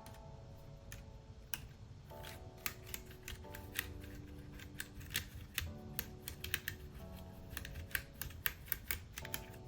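A small brush scrubbing over a Keychron K3 mechanical keyboard, giving irregular quick clicks and ticks as the bristles scrape dirt from between the switches. Soft background music with sustained chords plays underneath.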